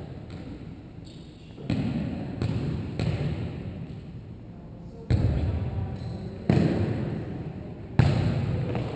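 Volleyball being struck and players landing on a wooden gym floor: four sharp hits or thuds, the first about two seconds in and the last three closer together, each echoing in the large hall.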